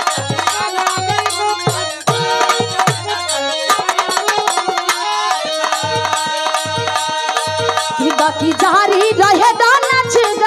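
Indian folk music with a steady tabla beat, a deep drum stroke at an even pace under held melody notes. A wavering melody line comes in about eight seconds in.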